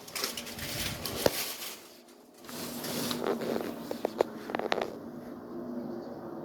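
An unidentified strange noise: a hiss, then, after a brief dip about two seconds in, a steady low hum under the hiss, with a few faint clicks.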